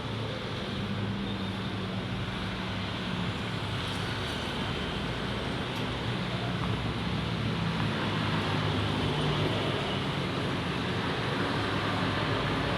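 Mollar 50-litre 'silent' eight-piston air compressor running steadily: a low hum with a broad hiss over it.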